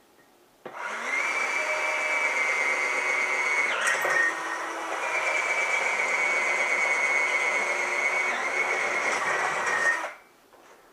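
Power drill with a 1/4-inch bit running and boring a hole through the particleboard of a chair seat. It starts about a second in, its pitch dips briefly about four seconds in as it loads up, and it stops near the end.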